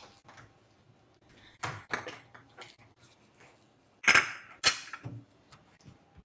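Scattered knocks and clicks of kitchenware being handled, with the two loudest coming close together about four seconds in.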